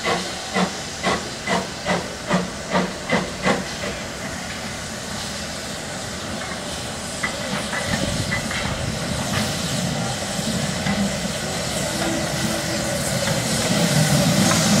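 Steam locomotive exhaust beats, evenly spaced at about two a second, stop about four seconds in. After that a steady steam hiss grows louder as the tank engine draws nearer, with a few faint clanks. The engine is the Terrier 0-6-0T No. 32670 hauling goods wagons.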